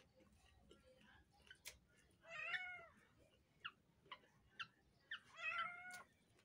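A domestic cat meowing twice, the second call longer, about a second. A few short, faint chirps come between the two meows.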